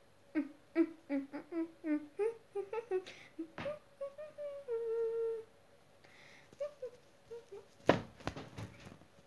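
A girl humming a tune in short notes, about three a second, then holding one long steady note. A loud sharp thump close to the microphone comes near the end.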